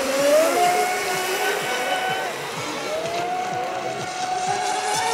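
Radio-controlled offshore racing boat's motor running at speed across the water, a steady high pitch that wavers up and down as the boat turns.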